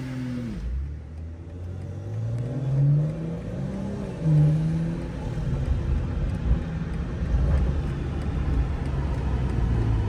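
BMW M240i's turbocharged straight-six heard from inside the cabin, its revs climbing twice in the first few seconds, each climb ending in a drop in pitch, then running steadily under engine and tyre noise.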